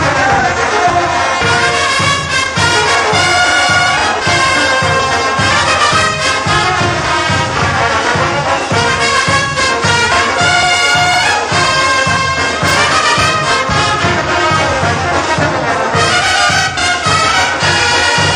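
Bolivian brass band playing a morenada: trumpets and trombones carrying the melody over sousaphone bass and a steady bass-drum beat.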